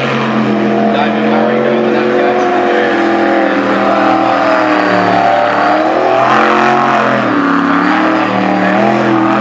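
Jet sprint boat's supercharged 406 cubic inch Chevrolet V8 running hard through the course, its pitch dipping and climbing again several times as the driver comes off and back on the throttle through the turns, with the deepest dip about seven seconds in.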